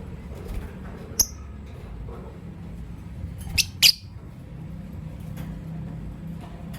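Lovebirds calling: one short high chirp about a second in, then two loud, high-pitched calls in quick succession a little after the middle.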